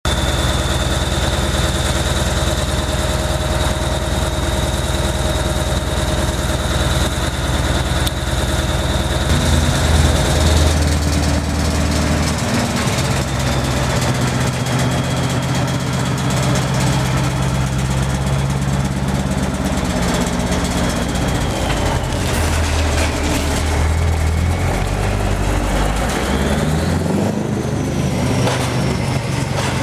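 Scania 143-420's 14-litre V8 diesel running through a straight open exhaust pipe: idling at first, then working harder from about ten seconds in as the truck pulls away under load, the revs rising and falling in steps. A thin high whistle sits over the first ten seconds.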